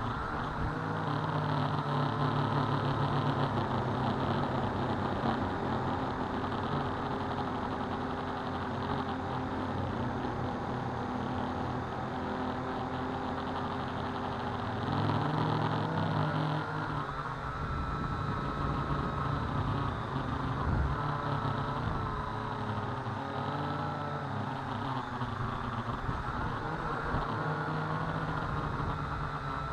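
Syma X8 quadcopter's four motors and propellers whining steadily, picked up by the action camera mounted directly on the airframe. From about halfway through, the pitch wavers up and down as the throttle changes.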